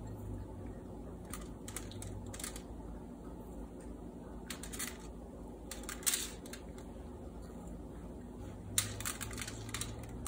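Coarse pretzel salt sprinkled by hand over damp pretzel dough on a metal baking sheet: light scattered ticks of grains landing, in brief bursts several times, over a faint low hum.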